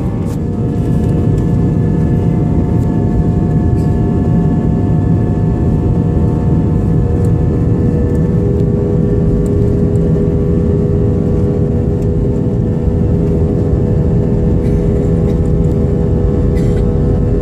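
Airliner engines at takeoff power, heard inside the cabin during the takeoff roll: a loud, steady rumble with steady whining tones over it, one more whine coming in about halfway through.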